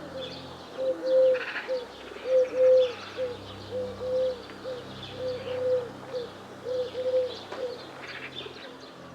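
A dove cooing: a phrase of three low coos with the longest in the middle, repeated about every second and a half. Other small birds chirp faintly behind it.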